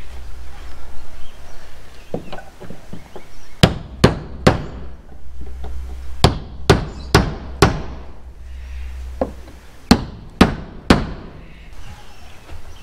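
Hammer knocking protruding nails back into timber weatherboards: three quick runs of three or four sharp strikes, about half a second apart. The nails had worked out as the boards moved, and are being set before the boards are sanded.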